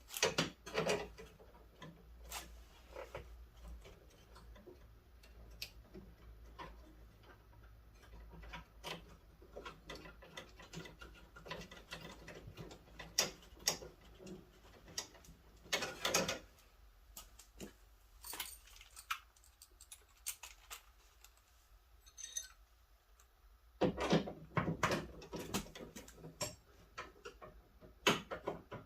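Hand tools and small metal parts clicking, clinking and knocking in irregular bursts as bolts are fitted to a car door's handle mechanism. It goes nearly quiet for a few seconds past the middle, then a quick run of knocks near the end.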